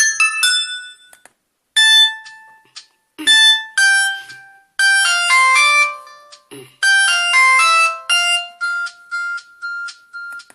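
Samsung GT-E1080i polyphonic MIDI ringtones. One tune dies away in the first second. After a short pause, a new melody of bright synthesized notes plays in short phrases and ends on about six evenly repeated single notes.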